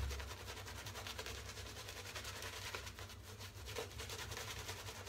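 Shaving brush scrubbing and swirling thick shaving-soap lather on the face, a quiet, continuous rapid bristly rubbing as the lather is built up.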